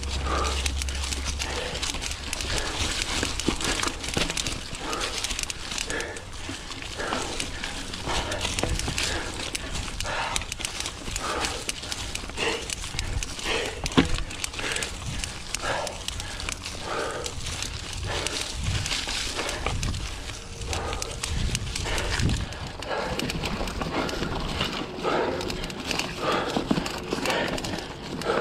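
Mountain bike trail riding: tyres rolling over dirt and dry fall leaves, with the rider breathing hard about once a second. A single sharp knock comes about halfway through.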